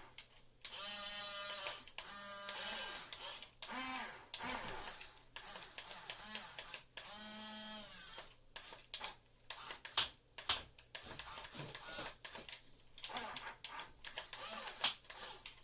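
Small electric gear motors of a toy-grade 1/14-scale RC excavator whining in short runs that start and stop as each function is clicked on and off, one run dipping and rising in pitch under load. Through the second half, sharp clicks and knocks come in among the whines as the bucket works the dirt.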